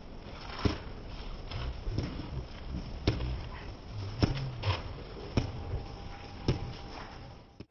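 Hand slapping the side of a football spinning on a fingertip to keep it going: a sharp slap every second or so at irregular intervals, over a faint low rumble.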